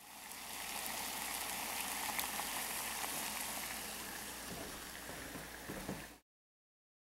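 Water at a rolling boil in a small pot heated by a homemade water-bottle alcohol stove burning denatured alcohol: a steady bubbling hiss with fine crackle. It cuts off suddenly about six seconds in.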